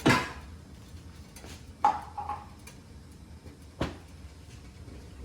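Cookware clanking at the stove: three sharp knocks about two seconds apart. The first is the loudest and the second has a short metallic ring.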